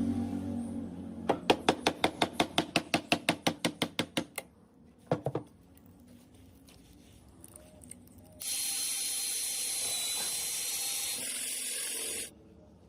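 Power tool at work on wood: a run of sharp clicks, about six a second for three seconds, then two more clicks. Later, a steady high-pitched whirr lasts about four seconds and cuts off.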